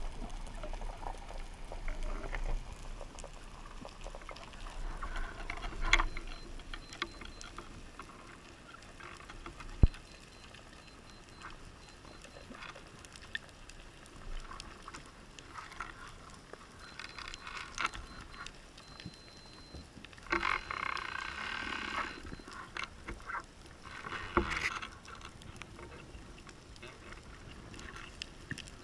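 Underwater ambience heard through a speargun-mounted camera: faint crackling with scattered clicks and knocks. A sharp knock comes about ten seconds in, and there are louder rustling stretches around twenty and twenty-four seconds in.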